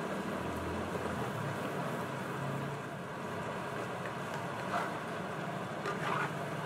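Chicken pieces and tomato paste sizzling in a stainless-steel wok while a spatula stirs them, with a few short scrapes of the spatula against the pan near the end.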